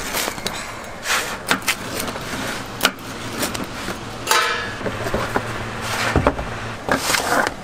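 Pizza being cut and boxed: a wheel pizza cutter rolling through the crust on a wooden board, then a cardboard pizza box handled, with scattered sharp knocks and taps over a steady low hum.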